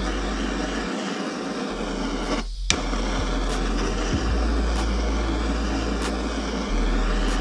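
Steady hiss of a gas-cartridge blowtorch flame heating the aluminium crankcase of an AM6 two-stroke engine, done to free the crankshaft from the case. A brief break comes about two and a half seconds in, then a sharp click.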